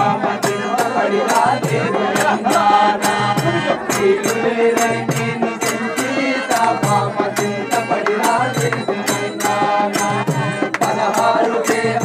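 Traditional devotional folk music with a steady rattling percussion beat, about three strikes a second, under a wavering melody line.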